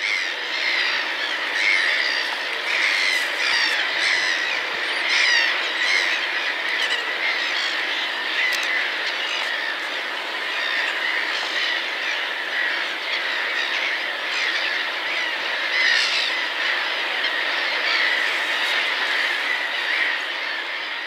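A large flock of birds calling at once: a dense, unbroken chatter of short overlapping calls.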